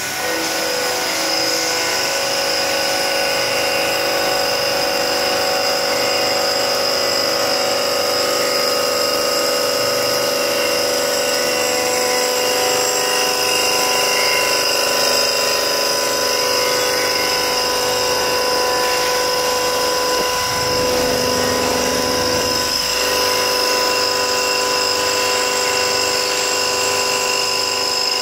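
CNC profile machining center's spindle driving a large face-milling cutter through an aluminum extrusion: a loud, steady whine of several held tones over a hiss. About three quarters of the way through, the cutting tone dips briefly and a low rumble joins for a couple of seconds.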